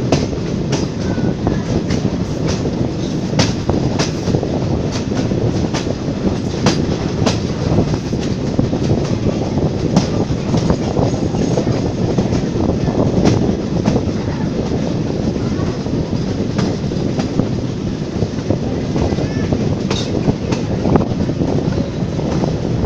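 Vintage passenger train hauled by a Ty42 steam locomotive, heard from the side of a moving coach: a steady rolling rumble of wheels on the track, with irregular sharp clicks and clatter from the rail joints.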